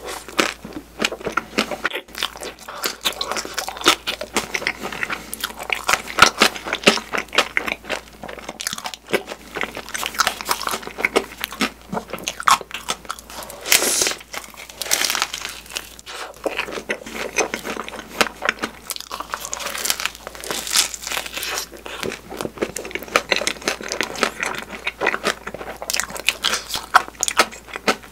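Close-miked eating of fresh strawberry crepes filled with whipped cream: a steady run of bites, chewing and wet mouth sounds, with a louder bite into a crepe about halfway through.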